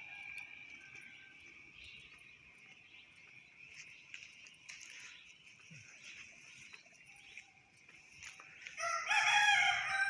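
A domestic rooster crows once, loudly, near the end, a call of about two seconds. Before it, a faint steady chorus of insects trills.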